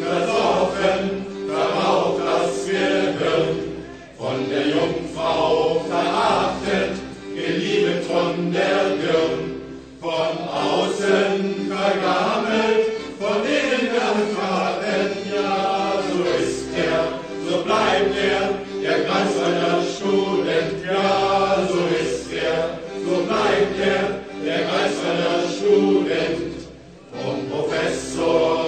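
Music: a German student drinking song sung in chorus by a group of voices, over an accordion-led band with a regular low bass beat.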